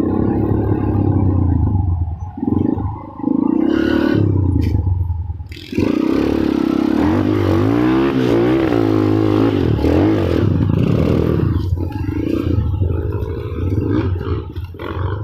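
A loud vehicle horn sounding in several blasts. The last blast is held for most of the second half, its pitch wavering up and down.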